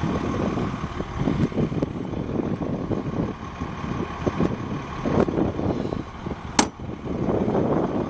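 A school bus engine running at a steady idle, a low rumble that wavers in level, with a single sharp click about six and a half seconds in.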